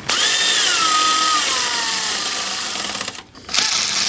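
Power drill running bolts into a plastic thermostat housing: one run of about three seconds whose whine drops in pitch as it goes, then a short pause and a second brief burst near the end.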